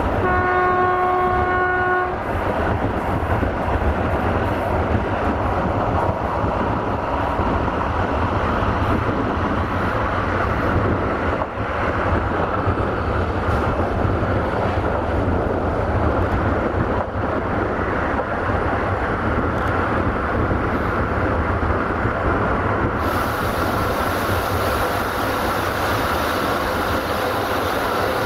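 Electric train horn sounding one steady note for about two seconds, then the passenger coaches' wheels running on the rails with a steady noise. A hiss joins in sharply about three-quarters of the way through.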